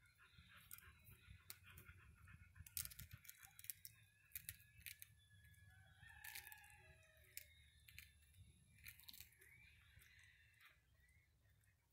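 Capuchin monkey cracking and picking the shell off a hard-boiled egg: faint, scattered crackles and clicks of eggshell. A faint pitched animal call comes in the background about six seconds in.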